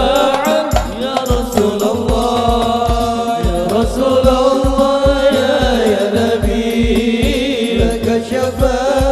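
Male singer performing an Arabic sholawat into a microphone, with long ornamented melismatic notes, over hadroh frame drums whose low bass strokes beat about twice a second.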